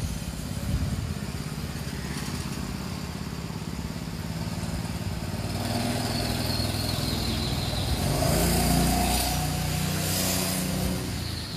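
Small gasoline engine of a go-kart running, revving up and getting louder and higher about two-thirds of the way through, then easing off.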